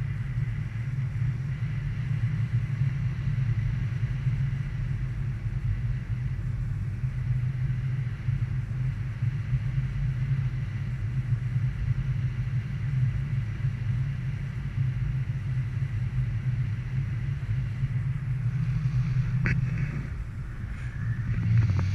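Steady low rumble of wind buffeting the microphone during a speedflying flight, with a sharp click and a short rising tone near the end.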